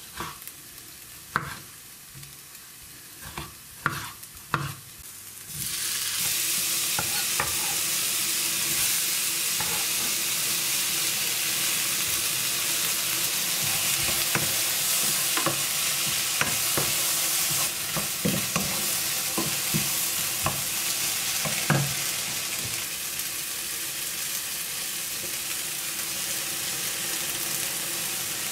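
A knife chopping tomatoes on a wooden cutting board, a few sharp knocks. About six seconds in, diced tomatoes and onions frying in a pan take over with a steady sizzle, and a wooden spoon knocks and scrapes now and then as they are stirred.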